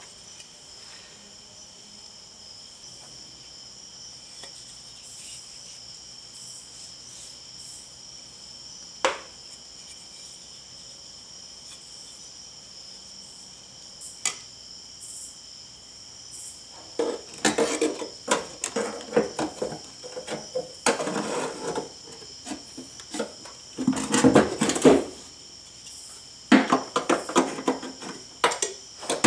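A steady high cricket-like trill, with a single click now and then, for the first half; then, from a little past halfway, repeated bursts of metal clinking and clattering as the Dodge Omni's wiper linkage under the cowl is handled and worked on.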